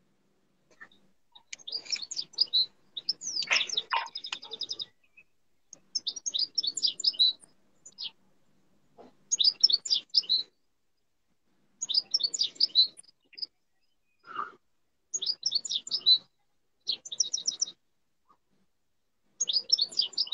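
A bird singing: about seven short, high, chirping phrases of one to two seconds each, repeated every couple of seconds with pauses between.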